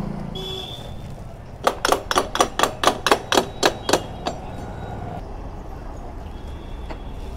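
A hammer tapping on metal, about eleven quick ringing strikes at roughly four a second, as a motorcycle's rear wheel and axle are worked loose for removal.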